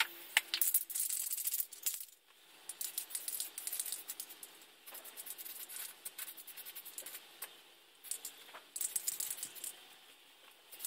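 Aerosol spray-paint can being shaken, its mixing ball rattling in repeated bursts, with the fainter hiss of paint spraying between them.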